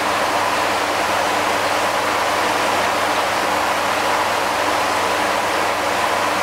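Steady rush of water running into a koi pond, such as a waterfall or filter return, with a faint steady hum underneath.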